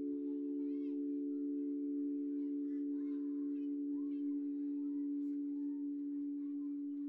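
A steady drone of several sustained pure tones held together as one low chord, with faint chirps and short sliding whistles above it.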